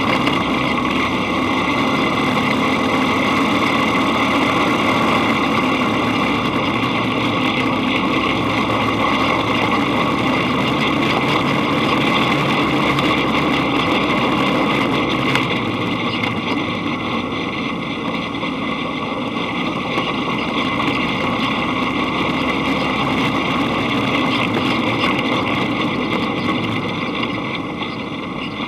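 Dune buggy engine running steadily while driving along a dirt track, easing off a little for a few seconds past the middle.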